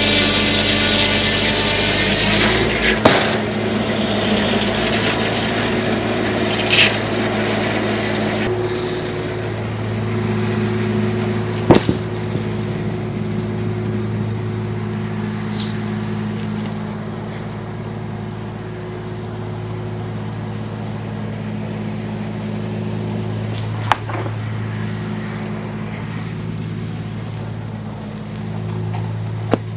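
A tractor engine runs steadily at throttle, driving a homemade circular sawmill. The saw cutting through a log ends about three seconds in, leaving the engine running with a few sharp knocks from the mill.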